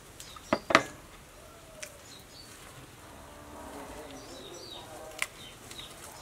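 A few sharp clicks of chopsticks and small dishes at a table, two close together about half a second in and fainter single ones later, over a quiet outdoor background with a faint voice.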